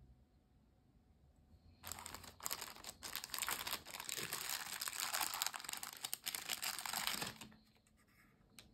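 Thin clear plastic bag crinkling as a wireless mouse is pulled out of it: a dense crackling rustle starting about two seconds in and lasting about five seconds, then stopping.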